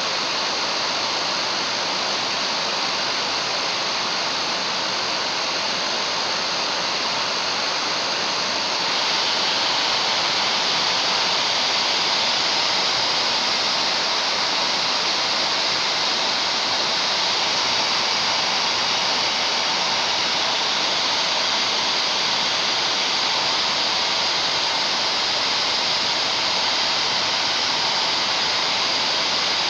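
Hair dryer blowing steadily, a loud even rush of air, heating a hard drive. About nine seconds in it gets a little louder and brighter, then holds steady.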